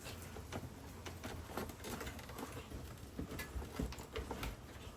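Irregular light clicks, taps and rustling of hands working wiring and parts into an RV converter bay, over a low steady hum.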